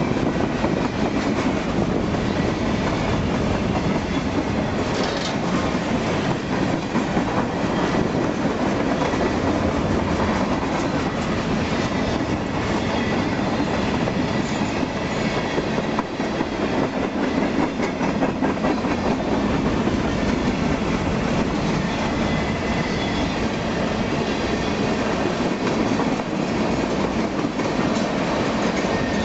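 Freight cars of a long freight train rolling past at track speed: a steady rumble of wheels on rail with a clickety-clack of wheels over rail joints.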